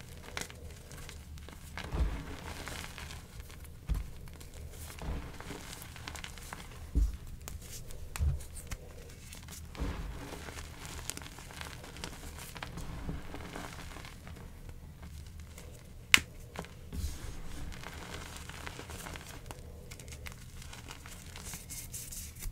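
Semi-dyed gym chalk being squeezed and crumbled by gloved hands: a dry, soft crunching and crumbling, with dull thuds every second or two during the first ten seconds and one sharp click about sixteen seconds in.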